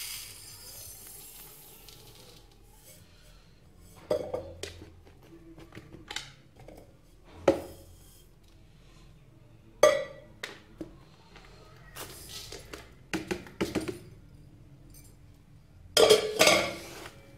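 Water poured from a steel tumbler into a plastic basin of uncooked rice, then the tumbler clinking and knocking against the basin and rice a dozen or so times, the loudest knocks about ten seconds in and near the end.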